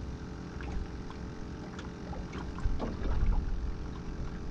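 Steady low rumble of wind and water around a small jon boat, with a few light knocks and a brief louder patch about three seconds in.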